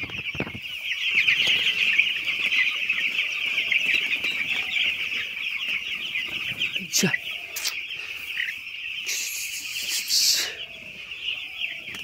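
A flock of young broiler chicks peeping continuously, a dense chorus of many overlapping high cheeps. About nine seconds in, a brief hiss of noise lasting a second and a half rises over them.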